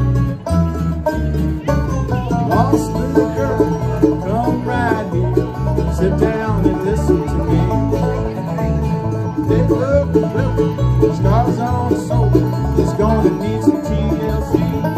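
A bluegrass band playing live, with banjo, mandolin and acoustic guitar over a steady bass line.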